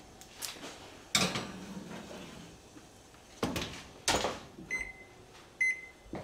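A metal pizza pan going into the oven with a clank and a short ring, then the oven door shut with two thuds. Near the end the range's control panel beeps twice as its keys are pressed to set the temperature and timer.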